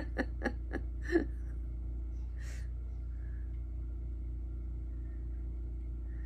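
A woman's short voiced sounds, about four a second, fading away within the first second or so. Then a steady low background hum, with one brief soft rustle about two and a half seconds in.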